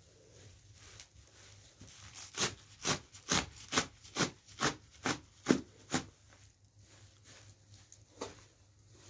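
Knife chopping a pile of fresh herbs on a metal tray: about nine sharp chops, roughly two a second, starting a couple of seconds in and stopping about two-thirds of the way through, with quieter handling of the herbs around them.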